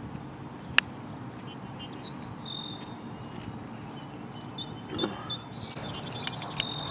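Small birds chirping now and then over a steady low hum, with one sharp click about a second in.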